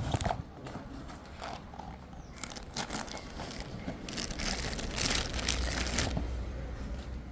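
Packaging being unwrapped from a Bluetooth speaker's box: rustling in irregular bursts, loudest about five seconds in, with a couple of sharp knocks at the start.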